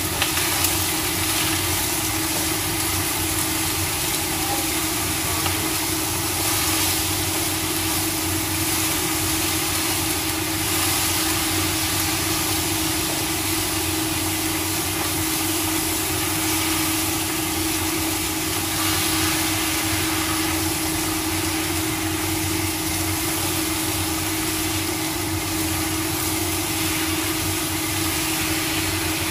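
Vegetables stir-frying in a wok on a lit gas burner, under a steady hum and hiss.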